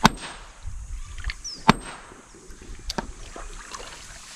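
Three sharp knocks of a rock being struck hard over about three seconds, the second the loudest: percussion fishing, blows on the rock to stun the fish sheltering beneath it.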